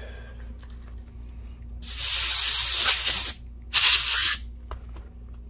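Compressed air blasted through a straw nozzle into a laptop's cooling fan and heat sink to blow out dust: one long hiss of about a second and a half, then a short one of about half a second.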